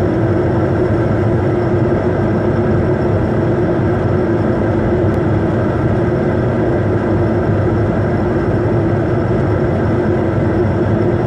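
Steady in-flight noise inside a Bombardier Challenger 350 business jet: a constant rush of airflow and its two rear-mounted Honeywell HTF7350 turbofans, with a steady hum beneath.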